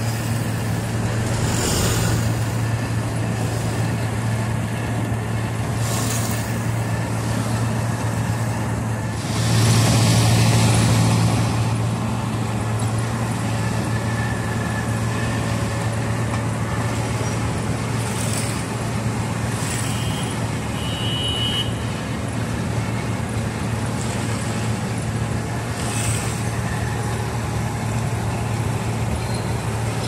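Wirtgen W1000 cold milling machine's diesel engine running steadily with a deep drone as the machine mills off the old asphalt road surface, mixed with street traffic. The noise swells louder for a couple of seconds about a third of the way in, and a few short hisses come and go.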